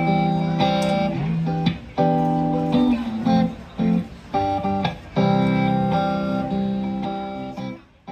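Acoustic guitar strumming chords, with short breaks between phrases, as a song's instrumental part; it fades away near the end.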